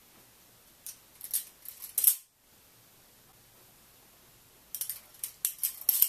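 Balisong (butterfly knife) being flipped: its metal handles clatter and click against each other and the blade in two quick runs. Each run ends with the loudest click as a handle is caught.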